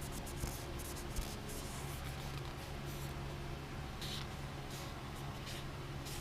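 Faint, quick scratchy rubbing strokes, a hand scrubbing at the crown of a 24-valve Cummins piston, in two spells over a steady low hum.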